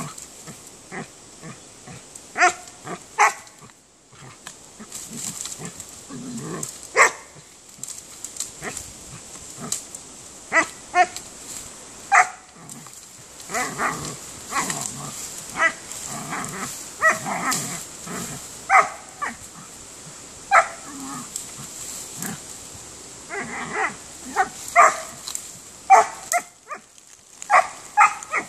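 Two dogs giving short yips and barks at irregular intervals as they dig and tug through brush.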